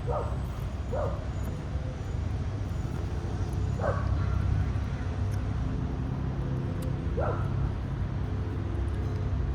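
Four short, high yelps spaced a few seconds apart, over a steady low rumble.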